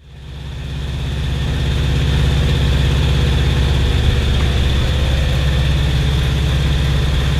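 Propeller plane's engine droning steadily, heard from inside the cabin, with a deep throb and a thin high whine above it. It fades in over the first two seconds.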